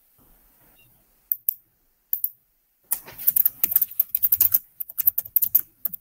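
Typing on a computer keyboard: two single keystrokes, then a fast run of keystrokes lasting about three seconds.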